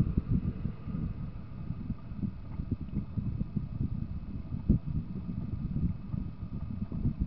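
Low, uneven rumble of a car driving, heard from inside the cabin through a dashcam's microphone, with a faint steady high whine and a couple of louder knocks from road bumps, one about two-thirds of the way through.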